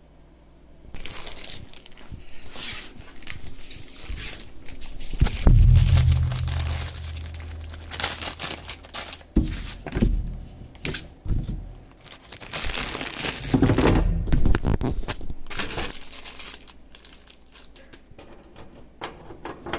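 Close rustling and rubbing with scattered knocks, the sound of things being handled right by the microphone, with a low steady hum for a few seconds midway.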